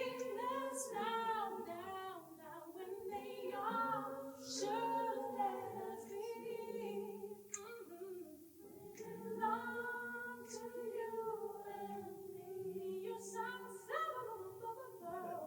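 A cappella voices singing held, slowly moving chords in harmony, with no instruments and no clear words.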